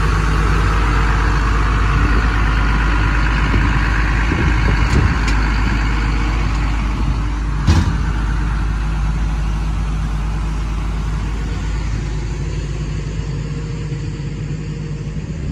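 Hyundai R210 excavator's Cummins diesel engine running steadily, growing gradually quieter toward the end. One sharp knock about eight seconds in.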